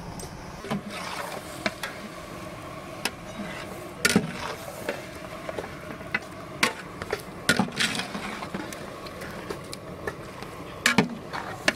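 Long-handled perforated metal ladle stirring raw chicken pieces into masala in a big metal cooking pot: irregular scrapes and sharp knocks of the ladle against the pot, the loudest about four seconds in and near the end.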